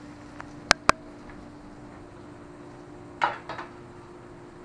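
Kitchenware handled during cooking: two sharp clinks close together about a second in, then a short scraping rattle about three seconds in, over a low steady hum.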